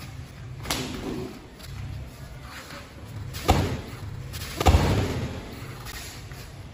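Sparring blows landing, gloved punches and kicks thudding: one hit about a second in, a harder one around three and a half seconds, and the loudest just before five seconds, with a few lighter hits between.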